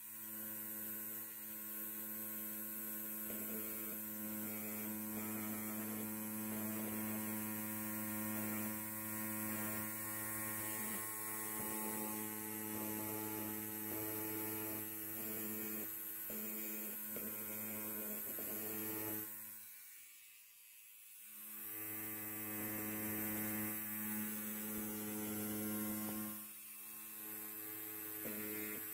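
Electric hair clippers buzzing steadily with a low, even hum, dropping away briefly about two-thirds of the way through and again near the end.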